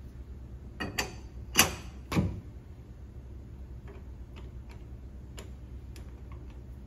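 Metal clinks and knocks as a four-jaw lathe chuck with a metal pipe through its bore is handled. Four sharp hits come in the first two seconds, the loudest about a second and a half in, then a few faint ticks.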